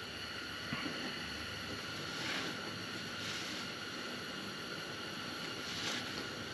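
A shop rag rubbing over the oily steel valve plate of a hydraulic drive motor: a few soft cloth swishes over a steady background hiss.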